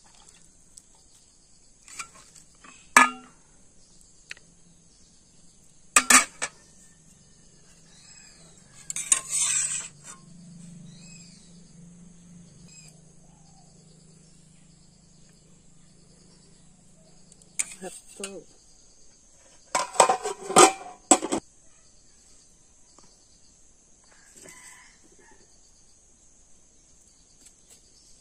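Steel ladle knocking and clinking against an aluminium pot and steel plates as rice and fried potatoes are served. The knocks are sharp and separate, with a quick cluster about twenty seconds in. Insects trill steadily throughout.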